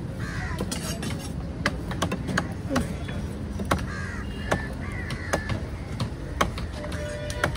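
Crows cawing several times, over sharp knocks of heavy knives chopping on wooden blocks about once a second, with background chatter.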